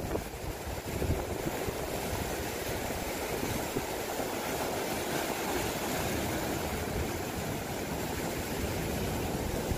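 Sea surf washing over and breaking against rocks, a steady rush of water noise.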